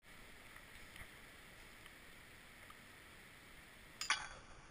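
Faint, steady outdoor background hiss, with a brief sharp click about four seconds in.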